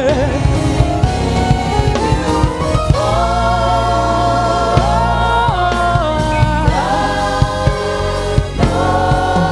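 Gospel church choir singing a slow worship song, holding long notes with vibrato over instrumental backing with steady low tones and regular drum hits.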